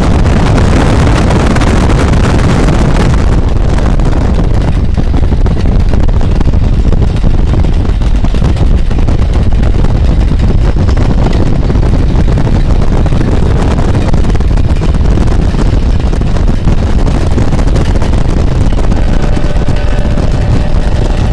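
Loud, steady rush of wind and road noise inside a car driving at speed beside a passing passenger train. A faint steady hum joins near the end.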